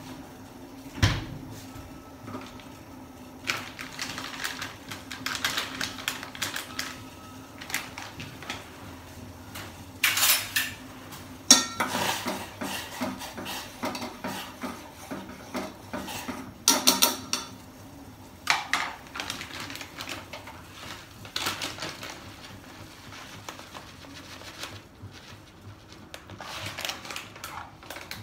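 Kitchen clatter: a metal spoon stirring and clinking against a steel saucepan, with scattered knocks and clinks of utensils and dishes.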